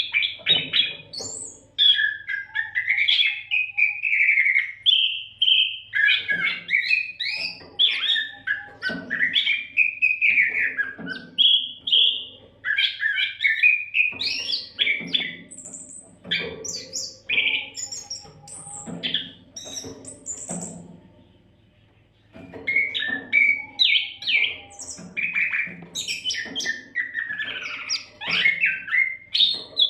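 Oriental magpie-robin (kacer) singing nonstop: a long run of rapid, varied whistled and scratchy phrases, with one short pause about three-quarters of the way through.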